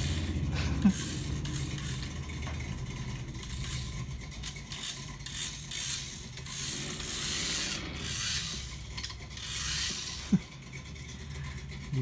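Shell Motorsport BMW M4 toy RC car's small electric motor and plastic gears whirring in surges as it drives over a tiled floor. Two sharp clicks come about a second in and near the end.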